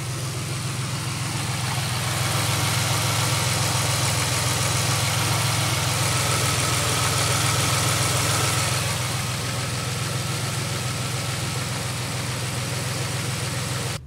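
A 3.4-litre GM 3400 SFI V6 idling steadily at about 740 rpm with cylinder 3 misfiring intermittently. A known-good replacement injector has not cured the miss, and the owner suspects wiring or low compression. The sound grows louder about two seconds in and eases after about nine seconds.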